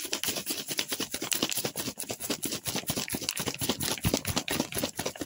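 An empty water bottle holding instant coffee, sugar and a little water being shaken hard to whip the mixture into foam, with rapid, even clicking and rattling, many strokes a second.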